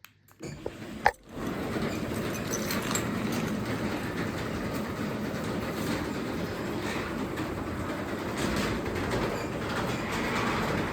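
A click, then a Craftsman 3/4 hp belt-drive garage door opener starts and runs steadily, closing the garage door.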